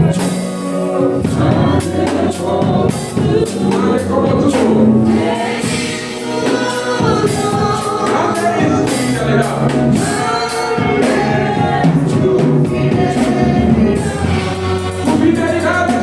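Gospel worship song sung by a choir or congregation with instrumental accompaniment and percussion.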